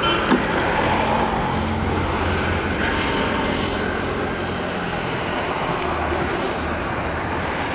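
Steady low rumble and hiss of outdoor background noise, with a short knock about a third of a second in.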